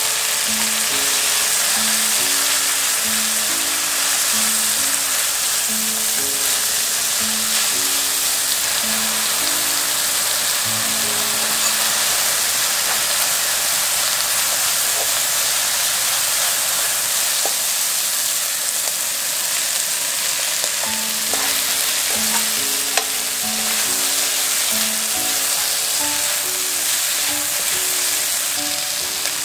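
Minced pork, dried red chillies, scallion, garlic and ginger sizzling in hot chilli oil in a nonstick wok as they are stir-fried with a wooden spatula, with the odd light scrape. A soft background tune plays underneath, dropping out for a few seconds midway.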